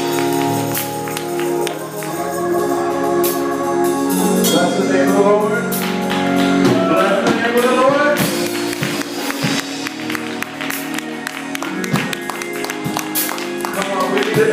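Live gospel singing by a vocal group, with held notes and runs, backed by band instruments and sharp percussive hits.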